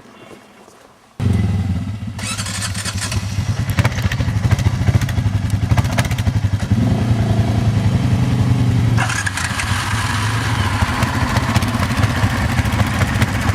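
ATV engine running steadily at riding speed, coming in suddenly about a second in, with the machine clattering over a rough trail; a brighter hiss joins about nine seconds in.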